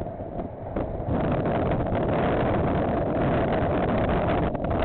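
Wind gusting hard on the microphone, suddenly loud about a second in, over the rumble of a freight train of container wagons rolling past.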